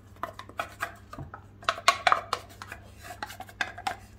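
Wooden spoon scraping tuna out of a metal tin can into a glass bowl: a run of irregular scrapes and light knocks of wood on metal.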